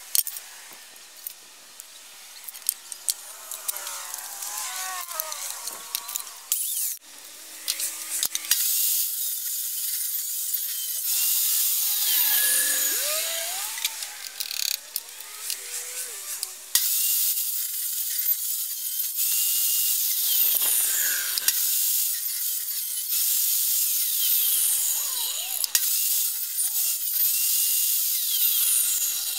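Electric miter saw and benchtop table saw running and cutting wooden boards, a hissing, high-pitched cutting noise heard as a string of short clips that switch abruptly from one cut to the next.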